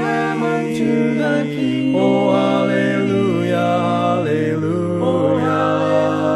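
Several voices singing a hymn a cappella in harmony, holding long chords that change about once a second.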